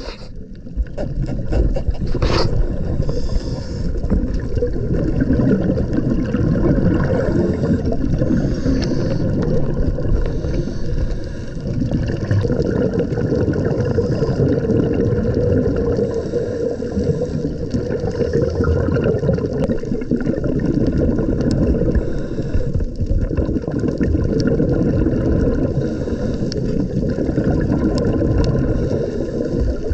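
Muffled underwater noise picked up by a camera in a waterproof housing: a steady low rumble of water moving against the housing, with faint scattered clicks.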